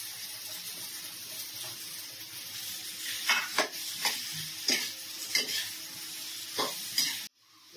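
Boiled potato pieces sizzling in hot oil and spices in a metal kadhai, with a metal spatula stirring them and striking and scraping the pan in about eight sharp strokes from about three seconds in. The sound cuts off abruptly near the end.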